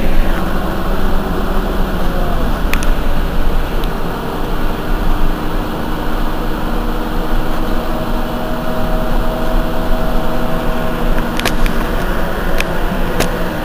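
Heuliez GX 127 city bus engine idling steadily at a stop, with a few short clicks, mostly near the end.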